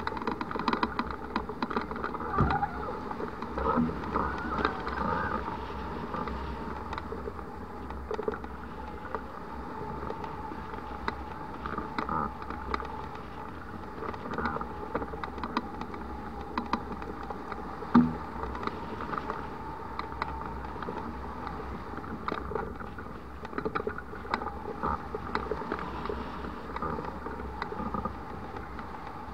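Hang glider in flight: steady wind rush and rumble on the wing-mounted camera, with irregular ticks and rattles from the glider's sail and rigging and a faint steady whistling tone. One sharper knock about eighteen seconds in.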